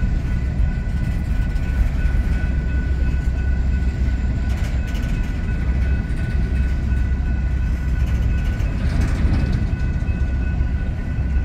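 Empty coal cars of a slow freight train rolling past, a steady rumble of wheels on rail, with a thin steady high tone running through it.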